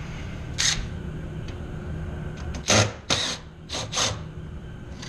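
A cordless drill running in several short bursts while driving screws in an electrical control panel, over a steady low hum.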